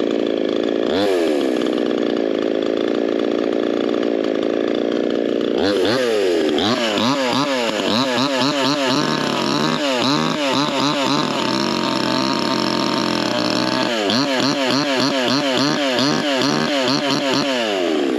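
Boshent 52cc two-stroke chainsaw running on its first start, steady for a few seconds, then revved up and down repeatedly from about six seconds in before settling back near the end.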